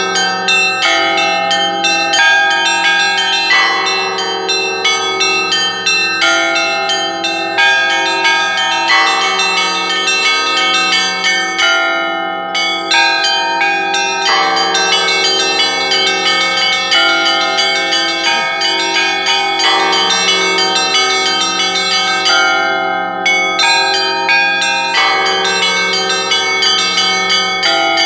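Russian church bell ringing (kolokolny zvon): several bells are struck together in a fast, repeating pattern over lingering bell tones. A deeper, heavier bell comes in about every five seconds, and the highest bells drop out briefly twice.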